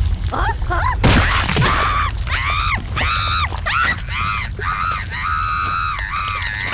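A crash with a shattering noise about a second in, followed by a high-pitched, squeaky cartoon character's voice letting out a string of short, arching cries.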